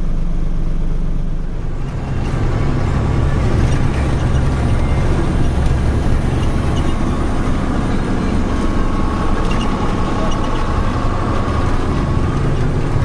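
Heard from inside the cab of a Tata 3118 truck on the move: a steady diesel engine drone with road and wind noise. It gets louder and fuller about two seconds in.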